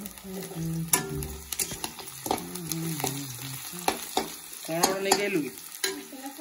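Sliced onions and bay leaves sizzling in hot oil in a wok while a metal spatula stirs them, with repeated sharp clicks and scrapes of the spatula against the pan.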